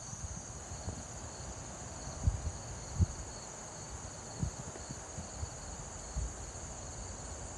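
Steady high-pitched chorus of insects, with a few short low bumps on the microphone.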